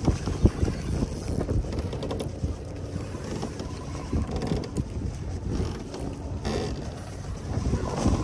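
Wind buffeting the microphone in low, irregular gusts, with choppy sea water lapping at the floating raft and a few light knocks.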